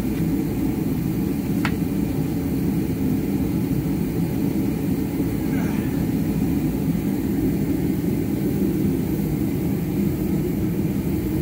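An engine running steadily, a constant low drone, with a single sharp click about a second and a half in.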